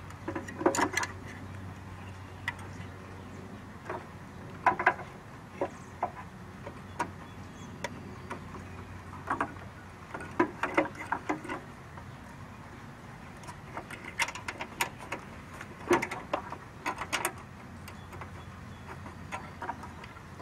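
Irregular metal clicks and clinks, some in quick clusters, as an aftermarket horn and its steel mounting bracket are handled and fitted onto a bolt on a car's radiator support, over a steady low hum.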